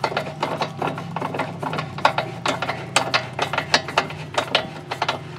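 Hand socket ratchet clicking in quick, irregular strokes, several a second, over a steady low hum.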